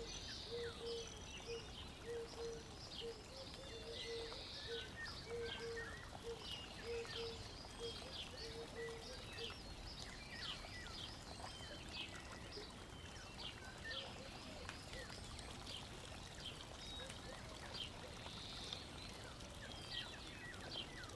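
Faint background of small birds chirping, many short high chirps scattered throughout. A short low note repeats steadily through the first half.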